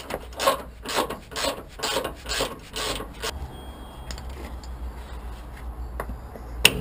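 Ratchet spanner worked back and forth undoing the trailing arm's front mounting bolt, rasping about twice a second for the first three seconds, then quieter, with a couple of sharp metal clicks near the end.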